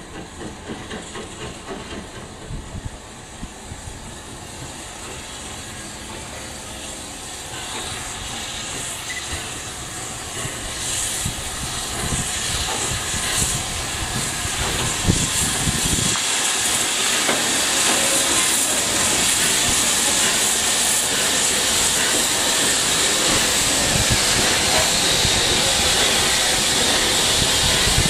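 Steam locomotive drifting in with its cylinder drain cocks open, hissing steam that grows steadily louder as it comes near and passes. Near the end its coaches roll by close up.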